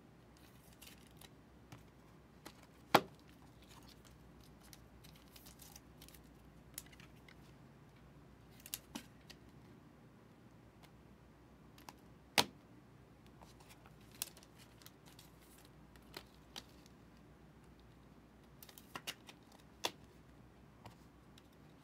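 Trading cards and hard plastic card holders being handled on a table: faint rustling with scattered sharp clicks of plastic, the two loudest about 3 seconds and 12 seconds in.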